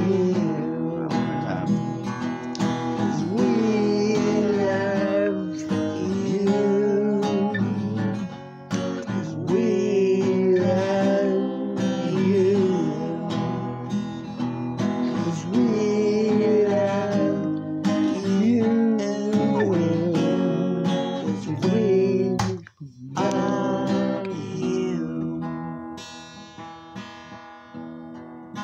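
Steel-string acoustic guitar strummed in a steady rhythm, with a wordless gliding vocal line over it. The sound drops out suddenly for a moment about three-quarters of the way through, then the guitar carries on more softly with ringing picked notes.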